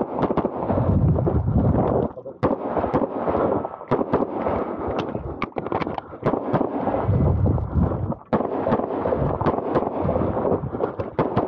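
CZ P-10 C pistol firing rapid strings of shots, with short lulls about two seconds in and again about eight seconds in.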